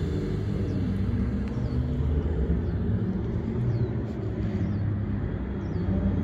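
Lamborghini Gallardo Spyder's V10 engine as the car drives away. Its note drops in pitch in the first second, then runs on steadily.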